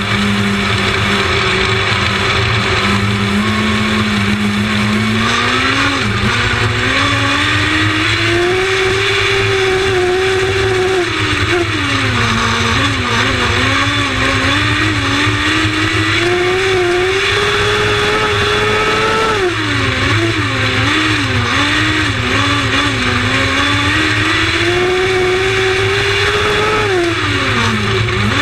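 Lightning Sprint race cars running in a race. One engine note climbs steadily and then drops sharply as it backs off, three times over, while the other engines drone underneath.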